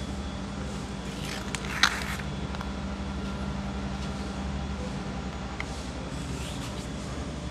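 Steady low machine hum, with a short crinkle of paper and a sharp tick about two seconds in, and a fainter rustle near the end, as torn paper backing is picked off a vinyl graphic.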